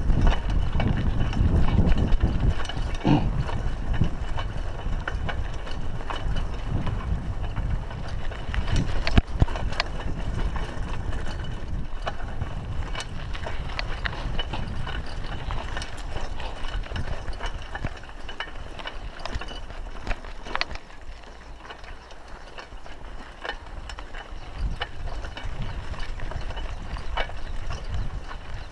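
Raleigh Ascent mountain bike rolling along a dirt and gravel track: a steady low rumble of tyres on the rough surface, with frequent small clicks and rattles from the bike over bumps. It eases off and quietens for a few seconds about three quarters of the way through.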